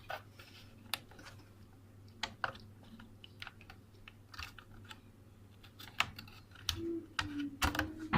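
Irregular sharp plastic clicks and taps of a RAM stick being handled and pressed into a motherboard memory slot and its latches.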